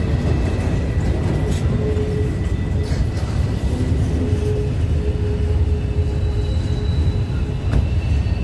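A train rolling past: a steady, heavy rumble of wheels on rail, with a few sharp clicks.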